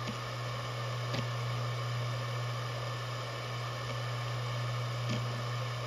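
Maxtor DiamondMax 17 7200 RPM hard drive spinning with a steady buzzing hum, which is normal for this model. Two faint ticks from the drive's heads come about a second in and near the end.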